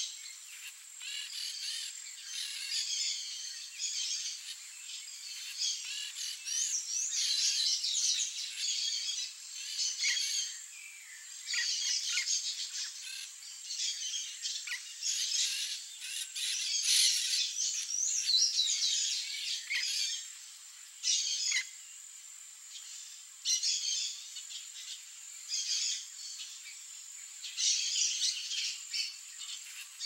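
A mixed flock of feeding birds, yellow-chevroned parakeets and tanagers, calling: high, shrill chirps and chattering calls in busy bouts with short lulls between.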